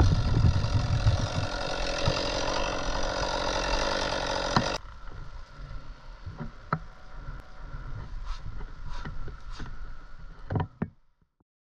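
Gas chainsaw running at full throttle cutting through a tree trunk, then cutting off abruptly about five seconds in. A few scattered knocks and clicks follow over a quieter low hum.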